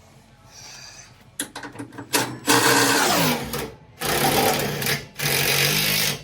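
A handheld power tool runs in several bursts: a brief stutter, then three longer runs. In the first long run the motor's pitch falls as it slows under load, running a suspension control-arm bolt down tight.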